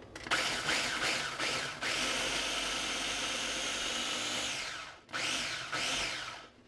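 Small electric food processor chopping red jalapenos to a puree. It is pulsed a few short times, then runs steadily for about three seconds and winds down, then gives one more short pulse.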